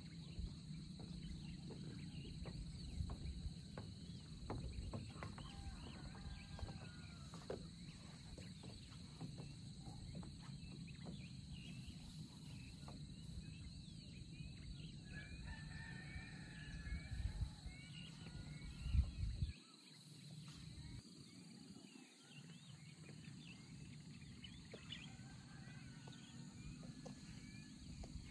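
Rural morning outdoor ambience: small birds chirping over a steady high insect drone, with a rooster crowing a little past halfway. A low wind rumble under it cuts off suddenly about two-thirds of the way through.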